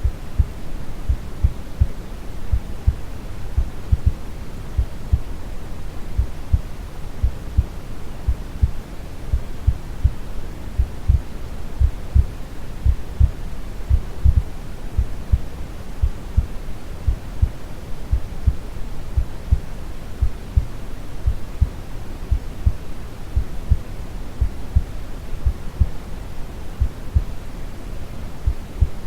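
Steady low brown noise with a calm heartbeat thumping regularly through it, a recording made for lulling a baby to sleep.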